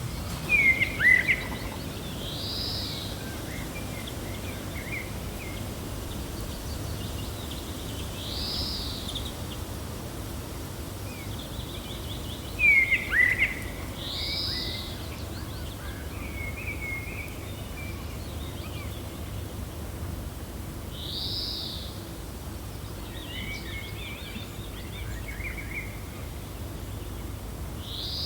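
Steady gentle wind with birds chirping: a short arched call repeats about every six seconds, and two louder flurries of sharp chirps come about a second in and again about halfway through.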